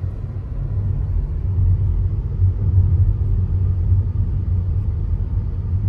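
Steady low droning rumble of road and engine noise inside the cabin of a moving MG5 sedan. The car's sound insulation is poor, so the drone comes through noisily into the cabin.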